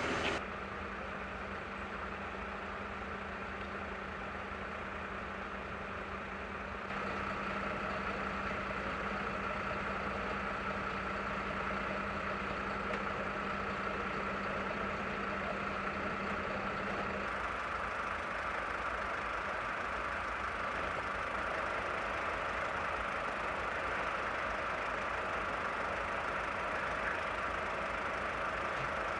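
Fire engines' diesel engines idling steadily, with a steady hum under them. The background changes abruptly about a quarter of the way in and again past halfway.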